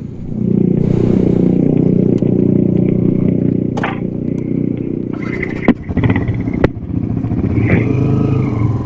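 Motorcycle engines running close by, getting louder about half a second in and then holding steady, with a few sharp clicks around the middle.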